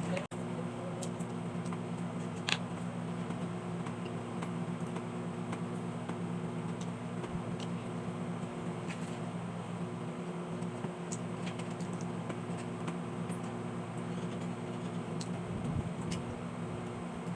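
A steady low mechanical hum, like a fan running, with scattered small clicks and taps on top, one sharper click about two and a half seconds in.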